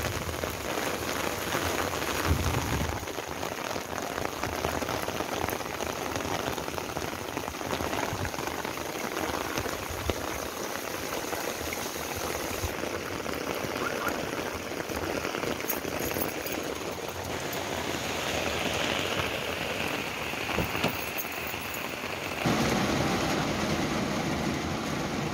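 Heavy rain falling steadily, a dense patter on wet ground; its tone shifts at several cuts, about 3, 13, 17 and 22 seconds in.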